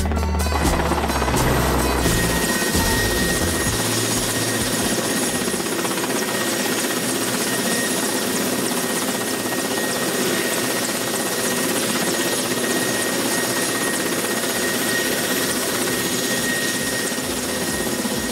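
Music for the first two seconds, then the steady, even noise of a helicopter in flight with a thin high whine running through it.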